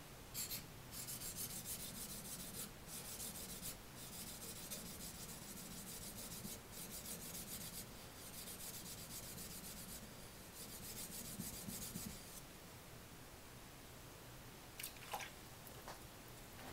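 Small Japanese knife blade rubbed back and forth on a wet natural waterstone: a gritty, hissing scrape in runs of strokes with brief pauses, stopping about twelve seconds in. A few light clicks follow near the end.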